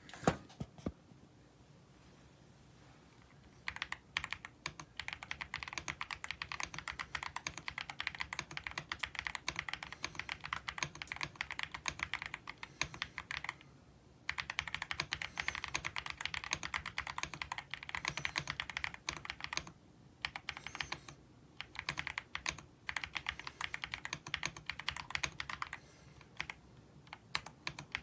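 Womier SK71 mechanical keyboard with gasket mount, aluminium alloy case and pre-lubed linear switches, being typed on fast: a dense run of key clicks starts a few seconds in and goes on in long stretches, broken by a few brief pauses.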